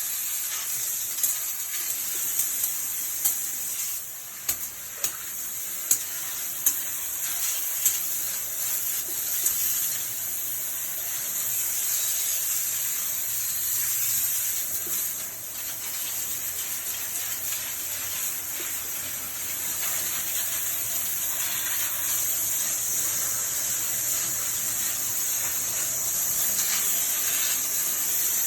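Water sprayed from a hose onto concrete stairs and into a drain, a steady hiss with splashing. A few sharp spatters stand out over the first eight seconds.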